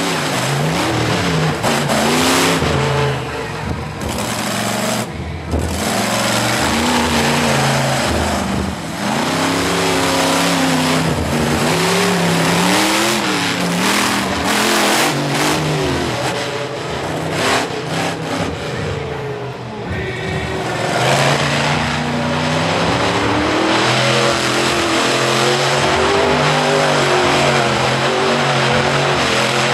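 Monster truck engine revving hard and dropping back again and again during a freestyle run, its pitch swinging up and down every second or two. It eases off briefly about two-thirds of the way through, then runs high again.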